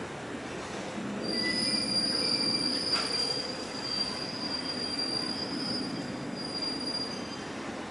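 Automatic dorayaki-making machine running, with a steady high-pitched squeal from about a second in until near the end and a single click about three seconds in.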